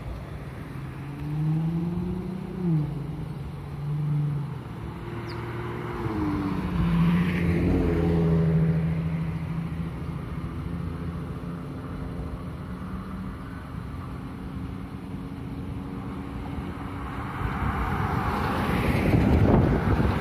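Road traffic passing on a busy street: engines accelerating, their pitch rising and then dropping at gear changes several times, and a louder rush of passing traffic near the end.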